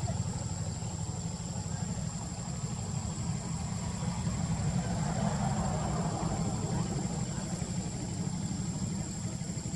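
A steady low rumble runs throughout, with a constant thin high-pitched whine above it.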